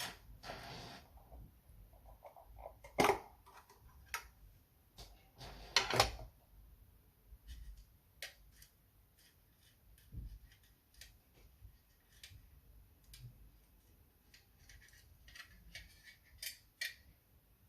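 Small plastic and metal parts of a tablet being handled during repair: scattered clicks and taps, with two louder knocks about three and six seconds in.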